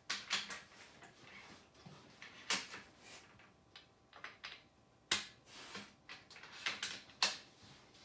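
Irregular sharp clicks and knocks of hard objects being handled, about a dozen spread over several seconds, the loudest near the start and about two and a half, five and seven seconds in.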